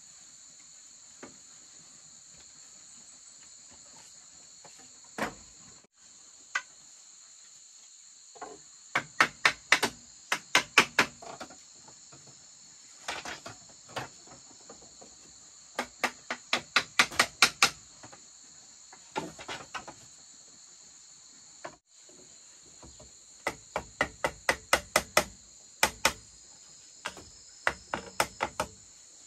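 Bursts of quick, sharp knocks, three or four strikes a second, from a tool striking bamboo, over a steady high-pitched drone of insects.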